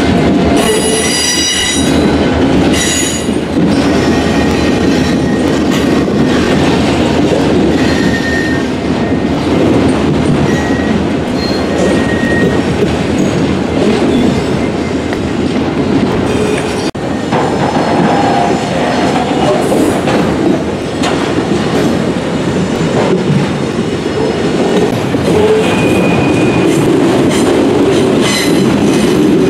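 A long string of autorack freight cars rolling past at close range: continuous steel wheel-on-rail rumble with clicking over the rails. Brief high-pitched wheel squeals come through, a strong one near the start and a few shorter ones later, as the train takes the curve from eastbound to northbound.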